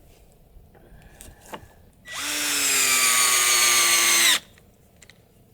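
Cordless power drill driving a screw into wood: a steady motor whine of about two seconds whose pitch sags slightly under load, stopping abruptly. Light handling clicks come before it.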